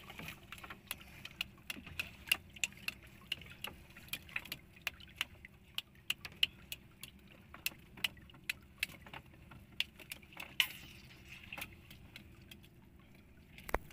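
Irregular sharp clicks and light rattles, a few each second, as a woven fish trap is handled at the side of a small boat, with one sharper click near the end.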